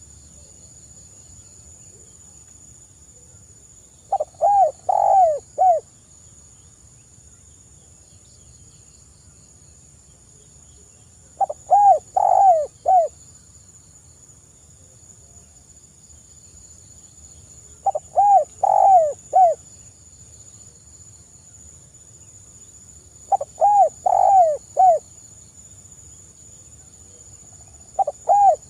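Spotted dove cooing. Each phrase is a short run of four or five coos lasting about a second and a half, and the phrase comes five times, about every six seconds. The last phrase is cut off at the end.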